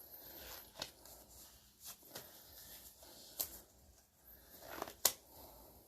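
Quiet handling noises of gloves being pulled onto the hands: soft rustling with a handful of short sharp snaps and clicks, the loudest about five seconds in.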